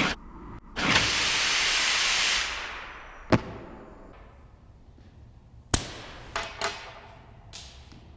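A compressed-air blow gun blasting air in two loud hissing bursts, the second lasting about a second and a half before tailing off. A sharp click follows, and a few seconds later a sharper crack with a couple of lighter knocks.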